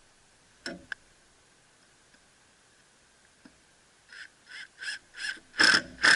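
A couple of clicks as a screw and drill are set in place, then a drill driving a small wood screw into plywood in short trigger bursts, about three a second, getting louder near the end.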